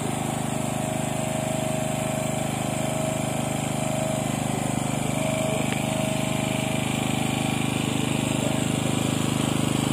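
A small engine running steadily at constant speed, a continuous even hum with no change in pitch.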